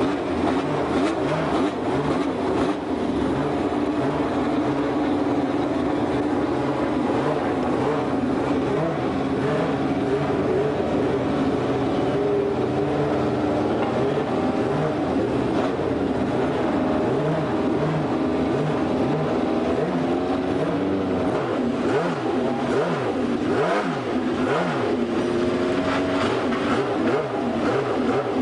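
Formula One car engines running in the pit garage, first at a steady high idle, then with repeated short throttle blips through the second half.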